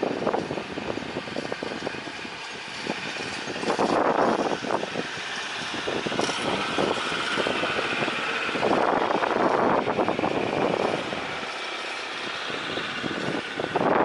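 Strong gusting wind buffeting the microphone, swelling hardest about four seconds in and again around nine to ten seconds, over the distant jet noise of a Lion Air Boeing 737 rolling out on the runway after landing.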